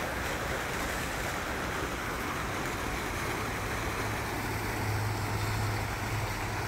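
Water splashing from an outdoor fountain's jets into its basin: a steady rushing noise. A low steady hum joins about four seconds in.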